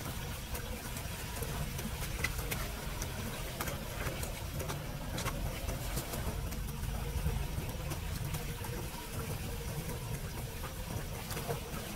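Steady low rumble with scattered light clicks and rustles as debris is scooped by hand from a street drain grate and dropped into a plastic bin bag.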